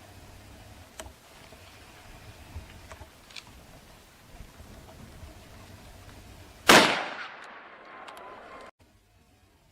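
A single gunshot about two-thirds of the way through, sharp and loud, its echo dying away over a couple of seconds before the sound cuts off abruptly. Before it, only faint quiet outdoor background with a few small clicks.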